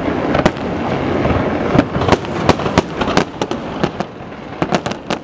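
Fireworks display: aerial shells bursting in a rapid, irregular string of sharp bangs, coming thicker near the end.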